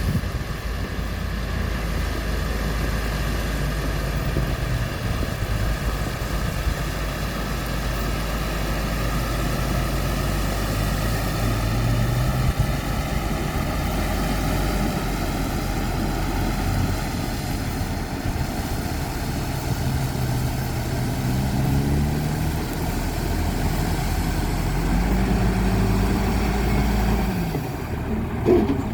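Diesel engine of heavy road-building machinery running steadily, its speed rising and falling several times.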